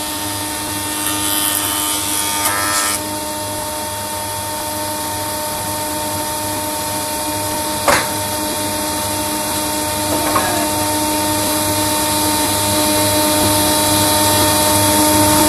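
Sicar C300 combination woodworking machine running with a steady hum. About a second in, a board is fed over the jointer cutterblock; the cutting noise lasts about two seconds and stops abruptly. A sharp click comes near the middle.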